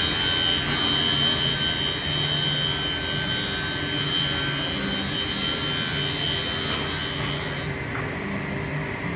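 A power tool running and working wood, with a steady high whine over a rough sawing or rubbing noise and a low hum that comes and goes about once a second. The high whine drops away about 8 seconds in.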